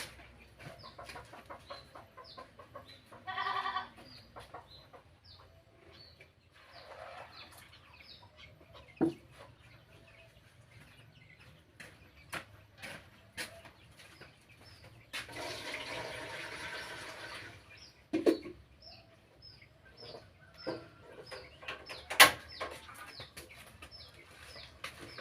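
Chickens clucking with small birds chirping over and over, among scattered sharp kitchen knocks and clicks. About two-thirds of the way through comes a rushing noise lasting about two seconds.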